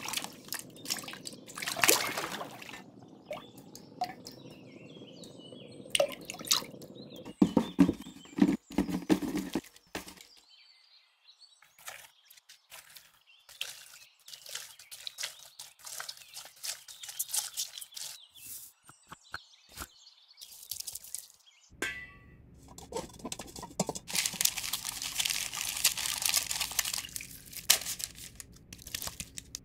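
Kitchen sounds of preparing potatoes: water sloshing in a large steel stockpot of boiled potatoes, then many short squishing clicks of a potato masher working cooked potatoes in a plastic bowl. Near the end, a denser scraping as the mash is pushed off a plastic cutting board into a steel pan.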